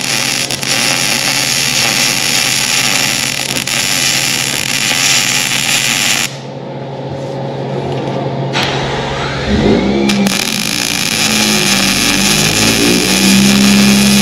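MIG welder arc running on a steel tube frame: a steady crackling hiss in two welds, with a break of about two seconds a little before the middle, over a steady low hum. Background music with a held tune comes in under the second weld.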